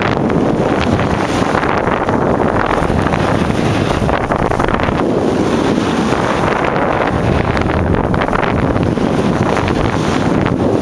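Loud, steady wind buffeting on the microphone of a camera carried at speed down a ski run, mixed with the hiss of sliding over snow.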